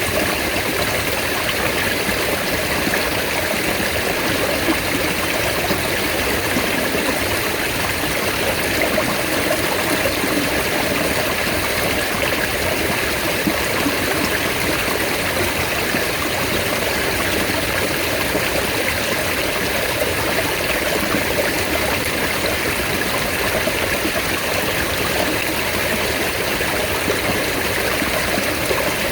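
Mountain stream running steadily, a continuous even rush of water.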